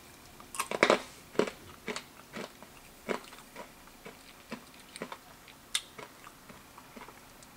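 A person crunching and chewing a small, hard, pressed-sugar cat-shaped candy in the mouth: irregular sharp crunches, a few loud ones in the first couple of seconds, then smaller clicks as it breaks down.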